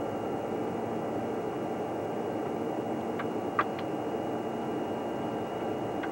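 Steady machinery hum with a thin, constant high whine, broken by three quick clicks a little past the middle and another at the very end.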